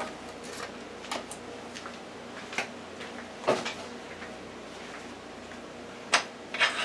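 Scattered knocks and clicks of kitchen containers and utensils being handled and set down on a countertop, with a handful of separate strikes a second or two apart.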